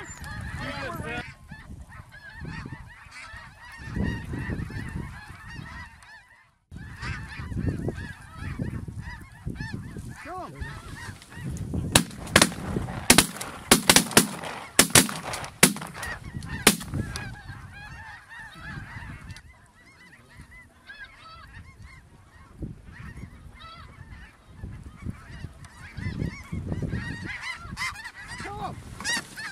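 A large flock of snow geese calling constantly overhead, a dense chatter of many overlapping high honks. A series of sharp clicks cuts through the calling about twelve to seventeen seconds in, and the sound drops out completely for a moment about six seconds in.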